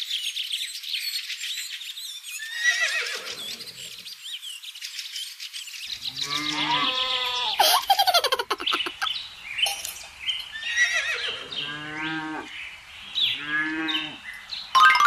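Birds chirping, then from about six seconds in a cow mooing four times, each call about a second long, with a short spell of rapid clicks about eight seconds in.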